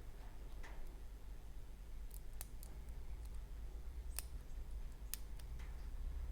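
Lock pick working the pins inside a Kik lock cylinder loaded with serrated and T-pins: small metallic clicks and scratches, with a few sharp ticks in the middle as pins are set.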